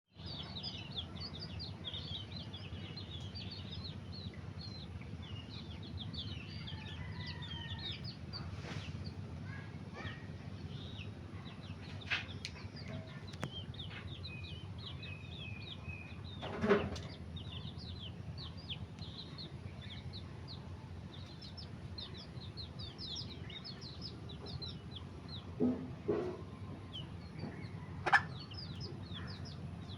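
Chicks peeping continually in short high chirps while feeding, with a hen clucking a few times, loudest about halfway through and twice more near the end. A steady low hum runs underneath.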